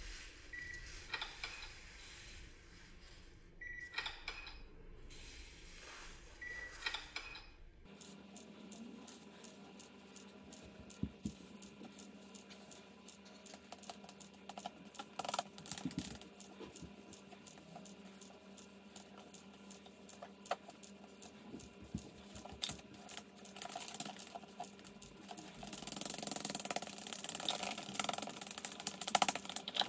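Charcoal sticks taped to the fingertips tapping, scratching and scraping across paper in quick, irregular clicks. The scraping gets denser and louder in the last few seconds.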